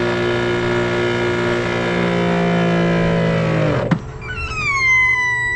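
Giraffe Tools Grandfalls PRO electric pressure washer's motor and pump running with a steady hum that sags slightly in pitch, then shutting off with a click about four seconds in. A high whistle follows that slides down in pitch and cuts off near the end: the noise the owner doesn't understand but guesses is normal.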